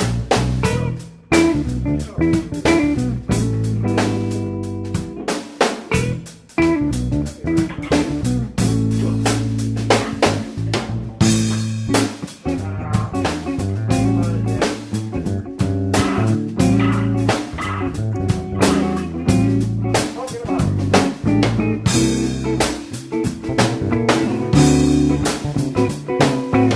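Background music: a band track with guitar, bass and a drum kit playing a steady beat.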